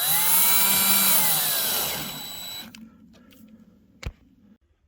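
Power drill driving a screw down through a cabin top rail: the motor whines steadily, then drops in pitch and winds down, stopping a little under three seconds in. A single click about four seconds in.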